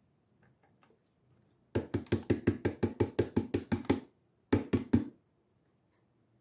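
Knocking on an upturned plastic bottle as the used cooking oil in it is drained out: a fast, even run of about six knocks a second for two seconds, then three more after a short pause.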